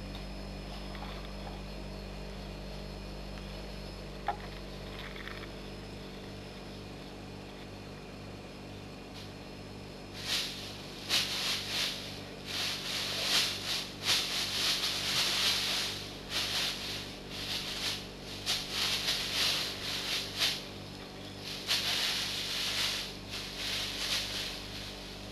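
Plastic packaging bag rustling and crinkling in irregular bursts as a cat plays with it, starting about ten seconds in. Before that only a faint steady hum and a single click.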